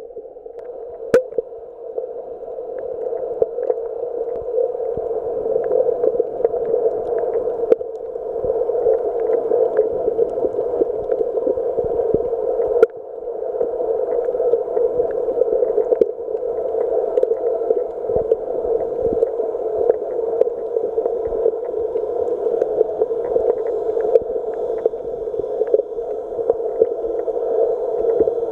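Muffled underwater noise picked up by a camera held below the surface: a steady, dull rush with many small scattered clicks and crackles, and one sharper knock about halfway through.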